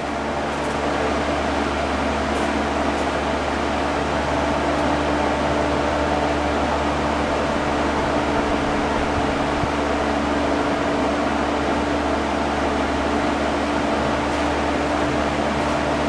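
DeWalt 18-inch drum fan running: a steady rush of air with a constant motor hum.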